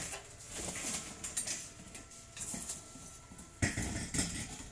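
Metal clanking and knocks as a welded steel window frame is lifted and shifted on a metal work table, with a louder knock about three and a half seconds in.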